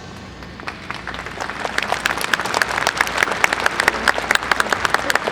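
Audience applauding: scattered claps begin about a second in and build into steady applause.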